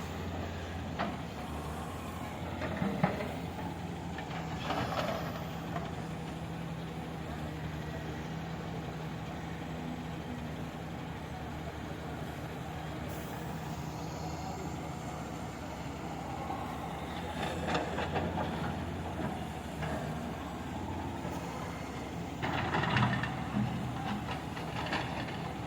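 Excavator's diesel engine running steadily, with short louder bursts of noise about 3, 5, 18 and 23 seconds in.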